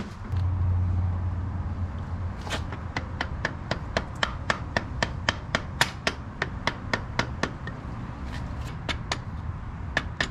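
Rubber mallet striking a block of wood to drive a crash-bar mounting bolt through its hole: a steady run of sharp taps about three a second, starting a couple of seconds in, with two short pauses. A low hum is heard before the tapping begins.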